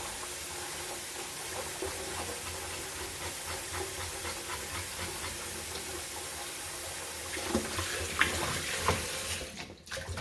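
Kitchen tap running steadily into a sink as raw chicken is washed by hand, with a few knocks and splashes in the last few seconds; the running water stops near the end.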